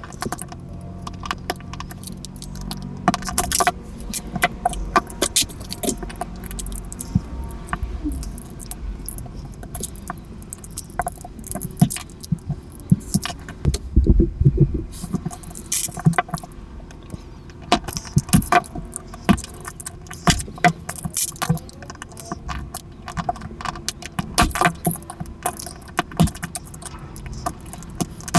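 Plastic Rubik's Cube pieces clicking and clattering as the cube is taken apart by hand, in quick, irregular runs of small hard clicks with a few duller knocks about halfway through.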